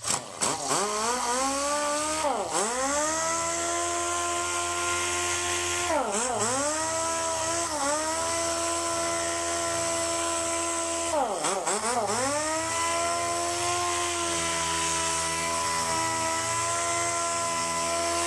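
Dual-action (DA) sander with a 180-grit disc sanding a car door, feather-edging around sanded dents. Its whine spins up at the start, then dips in pitch and climbs back about four times.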